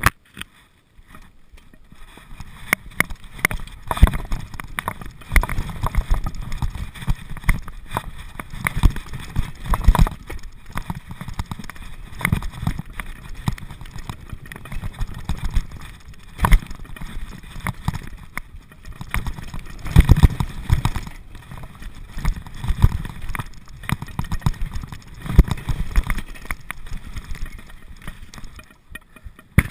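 Downhill mountain bike running down a wet, muddy track: a steady rumble of tyres and wind with frequent irregular knocks and rattles as the bike hits bumps, the hardest jolts coming about 4, 10 and 20 seconds in.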